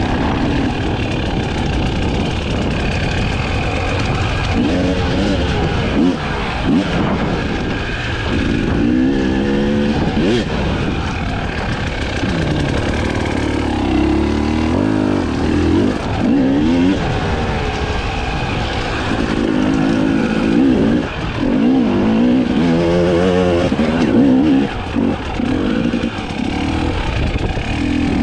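Husqvarna TE 300i 300 cc two-stroke enduro motorcycle engine being ridden, its revs rising and falling again and again as the throttle is worked.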